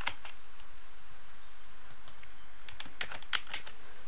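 Typing on a computer keyboard: a few keystrokes right at the start, then a quick burst of keystrokes about three seconds in, over a faint steady hiss.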